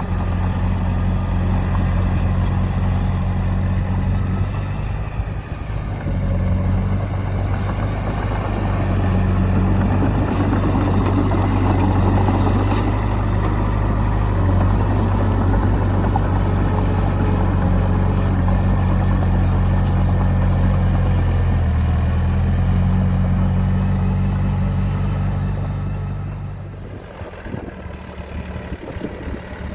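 Heavy diesel engine of earthmoving machinery running steadily, its pitch shifting slightly a few times, then dropping away to a quieter rumble near the end.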